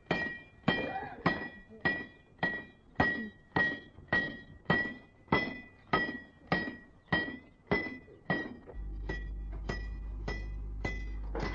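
Steady rhythm of sharp metallic strikes, a little under two a second, each with a short high ring, like a hammer on metal. A low steady hum comes in about three-quarters of the way through.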